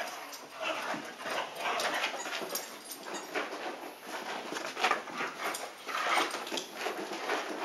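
Two dogs at play with a squeaky toy hamburger: a run of short squeaks and dog sounds, one every half second or so.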